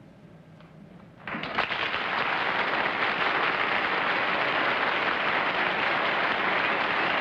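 Studio audience applauding, starting suddenly about a second in after a near-quiet pause and then holding steady.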